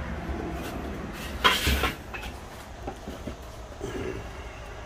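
Firework boxes being handled: a short knock and rustle of cardboard about one and a half seconds in, over a steady low hum.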